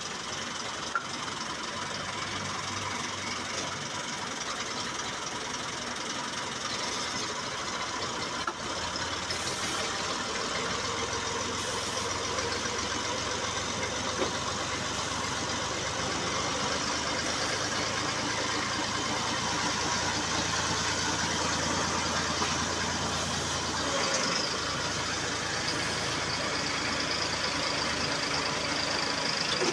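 Massey Ferguson 240 tractor's three-cylinder diesel engine running steadily, growing a little louder over the first half.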